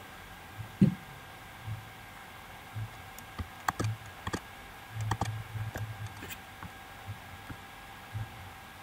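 A handful of sharp computer keyboard and mouse clicks in two short clusters around the middle, after a single low thump about a second in, over a faint steady hum.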